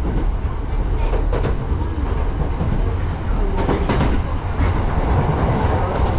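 Sotetsu electric train running, heard from inside the passenger car: a steady low rumble with the wheels clicking over the rails, the clicks coming in pairs about a second in and again near four seconds.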